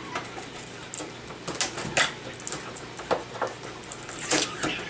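Light clicks, taps and scratching of hands handling wiring and plastic connectors on the sheet-metal chassis of an opened LCD TV, with sharper ticks about one, two and four and a half seconds in.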